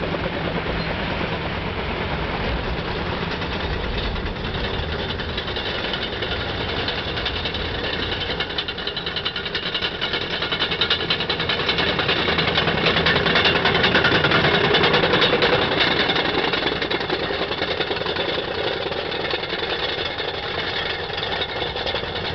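Caterpillar D8 bulldozer's diesel engine running with a steady knocking clatter, growing louder a little before the middle and easing off again.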